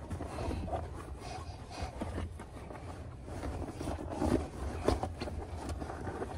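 Rustling of padded clothing and a child's car seat as a toddler is strapped in, with a few soft knocks of handling, over a steady low rumble.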